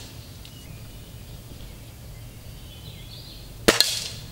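Gamo Silent Cat break-barrel spring-piston air rifle fired once, about three and a half seconds in: a sharp crack followed a split second later by a second crack, then a short fading tail.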